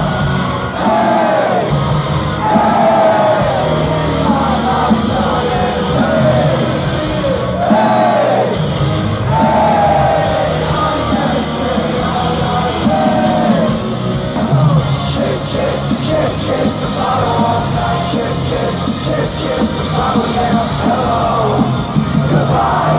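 Live rock concert heard from among the crowd on a phone: loud band music with singing voices and yelling.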